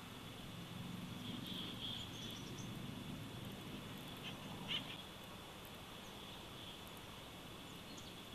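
Faint added outdoor nature ambience: a steady high insect-like drone with a few short bird chirps, and one brief sharp call a little past halfway.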